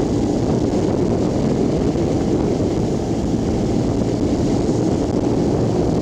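Motorcycle riding at speed: a steady engine drone mixed with rushing wind on the microphone.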